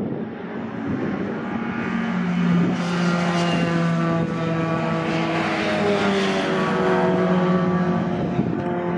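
A race pickup truck's engine passing at speed under power. It builds out of wind noise about two seconds in, is loudest as the truck goes by, and fades as it drives away near the end.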